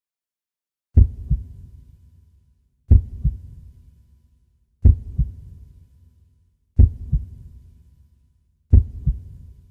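Heartbeat sound effect: five slow, deep lub-dub double beats about two seconds apart, each a strong thump followed by a softer one, with a low lingering tail.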